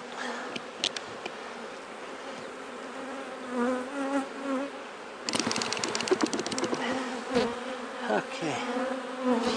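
Honeybees buzzing around an opened hive, with single bees flying close past and their pitch sliding up and down. About five seconds in, a rapid crackling of clicks lasting about a second and a half as a wooden frame is pried loose with a metal hive tool.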